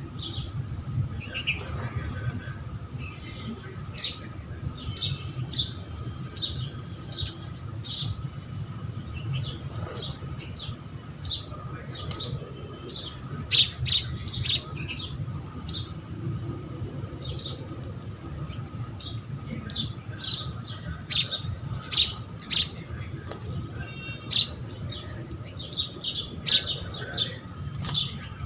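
Several house sparrows chirping, short sharp chirps coming in quick irregular bunches, over a steady low hum.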